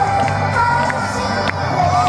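Upbeat pop song playing, with a crowd cheering over it.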